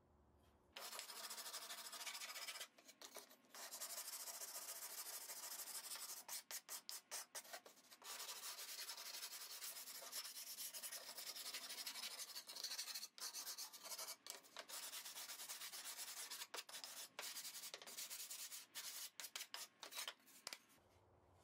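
Hand sanding the edge of a thin plywood panel with a sandpaper-faced sanding block: a scratchy rubbing in long runs, broken in places by quick rows of short back-and-forth strokes.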